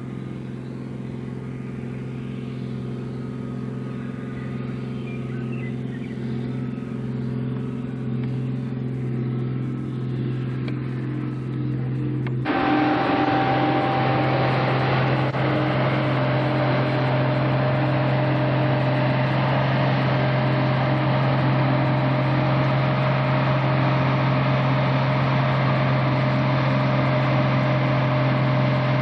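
Case International combine's engine running steadily and slowly growing louder as the combine comes in. About twelve seconds in the sound abruptly turns louder, with a steady rushing noise over the engine hum.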